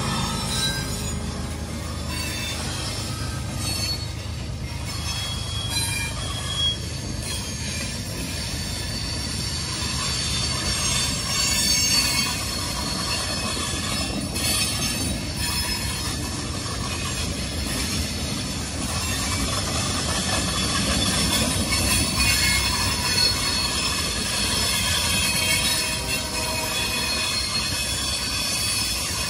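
A train rolling past with its wheels squealing on the rails. Several high, steady squealing tones sit over a continuous low rumble of wheels and cars for the whole stretch.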